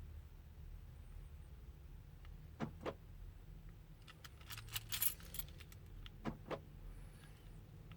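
Keys jangling on a key ring while the truck's ignition key is worked, loudest in a rattle around the middle. Two pairs of sharp clicks come before and after the rattle, with a low steady hum underneath.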